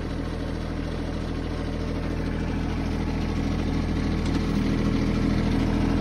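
Branson 2610H compact tractor's three-cylinder diesel engine running steadily while the backhoe's stabilizer legs are lowered hydraulically to press on the ground, growing slowly louder.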